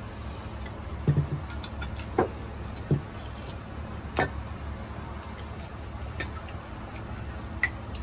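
Ceramic spoon and chopsticks clinking and knocking against porcelain soup bowls while eating, a handful of separate light clinks over a steady low hum.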